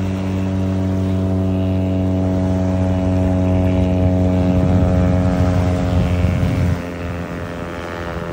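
Propeller engine of a wing-in-ground-effect sea plane droning steadily at one even pitch, slowly growing louder, then dropping suddenly about two-thirds of the way through with a weaker note carrying on, during a rough landing that the uploader wonders was an engine failure.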